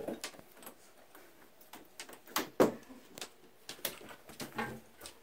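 Scattered light knocks and clicks, the sharpest two a little after two and a half seconds in, over quiet room tone.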